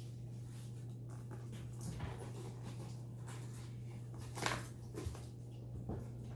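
Pet monkeys rummaging in a mail package: a few short scratchy rustles, the loudest about four and a half seconds in, over a steady low hum.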